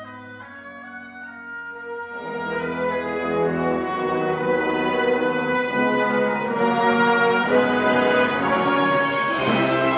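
Wind band playing a brass-led medley: soft held chords at first, then about two seconds in the full band comes in and builds steadily louder, with a crash near the end.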